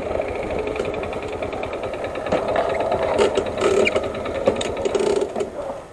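Small Yamaha motorcycle's engine idling at a standstill with a fast, even mechanical ticking, which dies away near the end.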